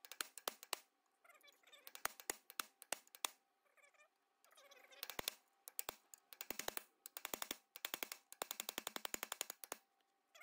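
A steel punch struck again and again against the old front wheel bearing cone on an Allis-Chalmers D17 spindle, driving the rusted-on cone loose. The sharp metal strikes come in quick bursts of several a second, with short pauses between the bursts.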